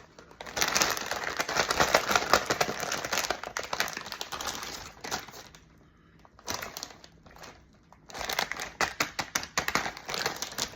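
A potato chip bag crinkling as it is handled. The crinkling is dense for about the first half, then comes in shorter bursts after a brief lull.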